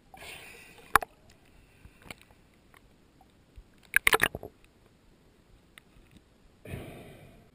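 Underwater handling noise as a speared tilapia is gripped on the spear: sharp clicks and knocks, the loudest a quick cluster of clicks about four seconds in, between two short rushes of bubble noise at the start and near the end.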